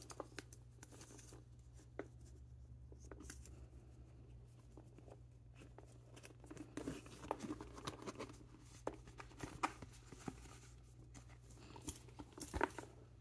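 Hands handling a Louis Vuitton Montsouris backpack: faint rustling of the canvas, leather strap and drawstring, with scattered small clicks as the metal buckle is fastened. A sharper knock comes near the end as the bag is tipped over.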